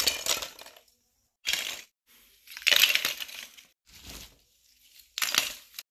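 Lumps of wood charcoal crunching and clattering as they are taken by hand from a sack and dropped into a plastic basket. There are about five separate handfuls, the loudest about three seconds in.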